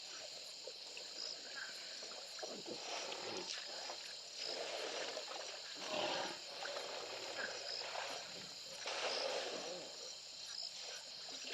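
Elephants drinking at a waterhole: three or four rushing, splashy bursts of noise a second or two long, the loudest about six seconds in, over steady insect chirring.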